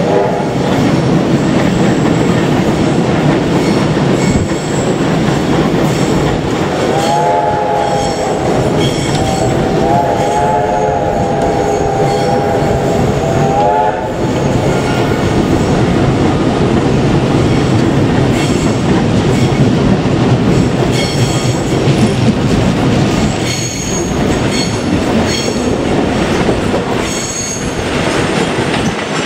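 Steam-hauled train running by, its wheels clattering and squealing on the rails. About seven seconds in its whistle sounds, breaks off briefly, then is held until about fourteen seconds.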